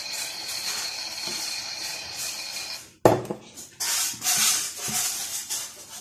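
Toy Miele W1 washing machine on a rinse cycle: a steady hiss with a thin high whine that cuts off about three seconds in with a sharp click, followed by irregular splashing and clattering of water and socks in the drum as it starts turning.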